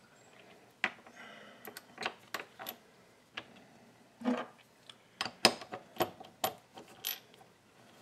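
Irregular small metallic clicks and clinks, about a dozen, from metal parts and a tool being handled on a Frankford Arsenal M-Press coaxial reloading press as it is reassembled. The loudest clicks fall a little past the middle.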